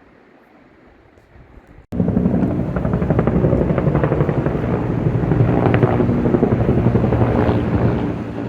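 An engine running steadily, starting abruptly about two seconds in over a fainter rushing noise.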